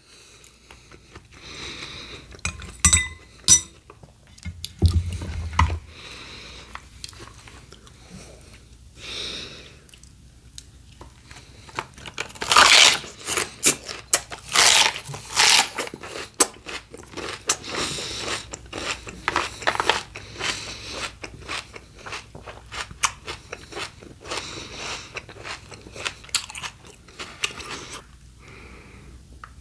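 A person chewing and crunching raw fruit and vegetables, bite after bite of short, sharp crunches. The loudest crunches come in a cluster about halfway through.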